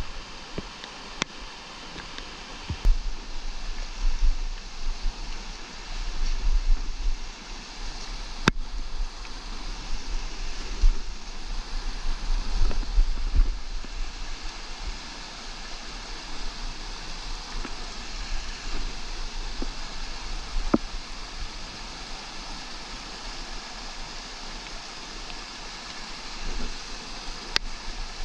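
Small mountain creek rushing and splashing over boulders in a steady cascade. Low rumbling comes and goes in the first half, with a few sharp clicks.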